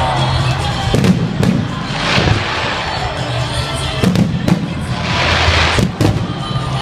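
Fireworks going off: several sharp bangs and swelling crackling hiss from bursting shells, over a steady low background of music.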